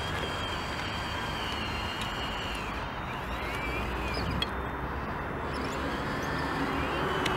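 Electric drive and hydraulic motors of a 1:14 scale RC Liebherr LR 634 tracked loader whining as it drives into gravel and works its bucket, the pitch sliding up and down around the middle, over a steady low rumble. A single sharp click comes a little past the middle.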